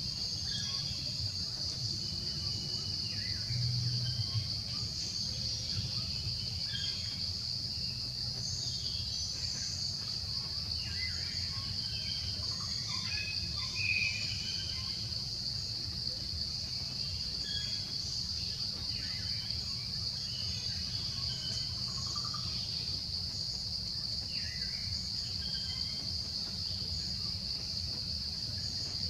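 Forest ambience: a continuous high, steady insect drone, with scattered short bird chirps and a low steady rumble underneath.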